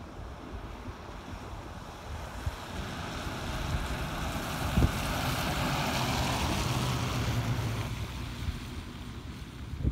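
Wind buffeting the microphone in a gusty low rumble. A rushing swell with a low hum in it builds about three seconds in, peaks near the middle and fades away. A single sharp knock comes near the halfway point.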